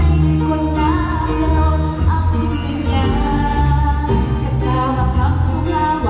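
A woman singing a Tagalog song into a microphone over a recorded backing track with a steady, strong bass line.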